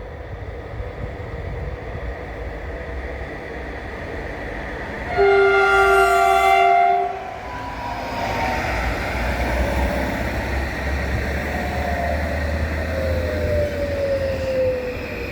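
Train horn sounding one blast of about two seconds, about five seconds in, over the rumble of the approaching train. Afterwards the train rumbles past, with whining tones that slowly fall in pitch.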